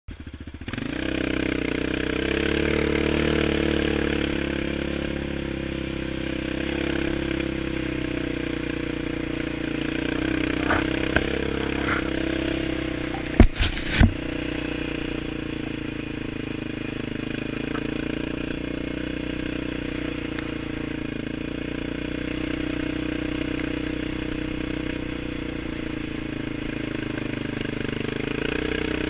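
Yamaha Raptor 700R quad's single-cylinder four-stroke engine running steadily as it rides through shallow muddy floodwater. A couple of loud, sharp knocks come about halfway through.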